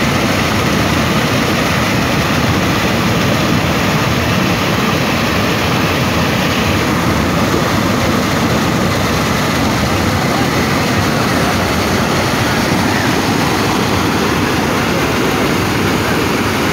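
River rapids rushing over rock ledges and boulders close by: a loud, steady wash of white water.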